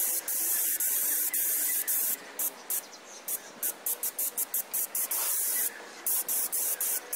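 High-pressure water jet from a pressure cleaner's wand blasting roof tiles, a loud hiss. About two seconds in it starts breaking off and resuming many times in quick succession.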